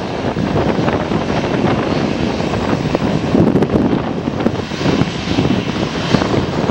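Twin-jet airliner's engines running as it lands and touches down on the runway, mixed with wind buffeting the microphone.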